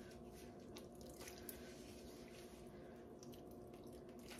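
Faint dripping and squishing of whey as soft mozzarella curds are squeezed together by hand, a few soft scattered ticks over a low steady hum.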